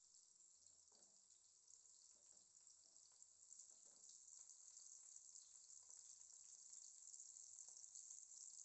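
Stuffed bitter gourds shallow-frying in oil: a faint steady sizzle that grows slightly louder, with a few light clicks as the pieces are turned with tongs.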